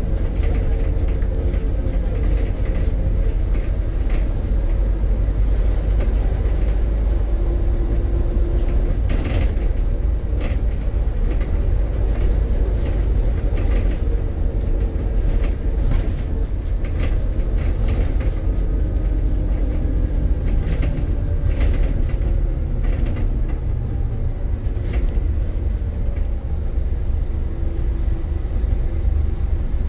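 Scania N230 bus's five-cylinder diesel engine running under way, a steady low drone whose note shifts up and down as it pulls and eases, with frequent short rattles and creaks from the bus body.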